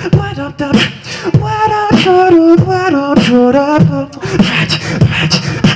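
Beatboxing into a microphone: a simple beat of sharp kick and snare sounds under a hummed vocal melody that steps and glides up and down.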